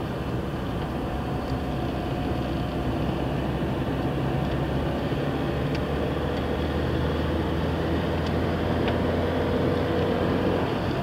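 Car engine and tyre noise heard from inside the cabin while driving at a steady speed, with a faint whine coming in about halfway through.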